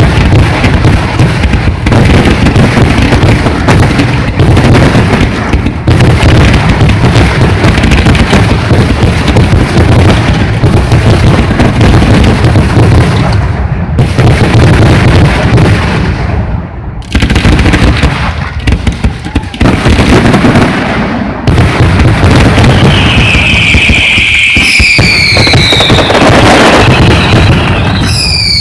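Fireworks display finale: a dense, continuous barrage of loud bangs with hardly a break. Near the end, whistling fireworks join in, several whistles falling in pitch.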